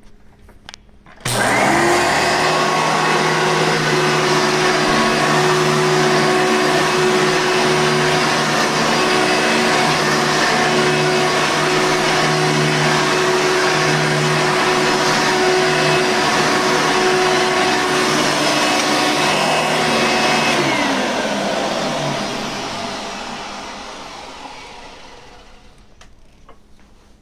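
Hoover Sprint vacuum cleaner switched on about a second in, its motor running at a steady high whine, then switched off after about twenty seconds and spinning down slowly, the pitch falling away over several seconds.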